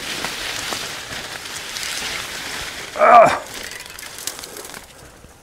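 Corn leaves rustling and brushing against the camera as it pushes through the crop. About three seconds in, a short, loud pitched sound with a wavering tone cuts in briefly.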